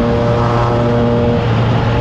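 Triumph Trident 660's three-cylinder engine running at steady revs through a FireTong aftermarket exhaust, its pitch holding level, with wind rush on the microphone.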